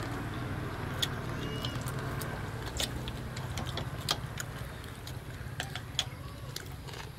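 Chopsticks and spoons clicking and tapping against ceramic plates and bowls as people eat, in scattered light ticks, over a steady low hum.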